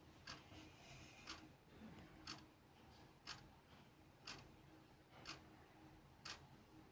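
Faint, steady ticking of a clock, one tick each second, over near-silent room tone.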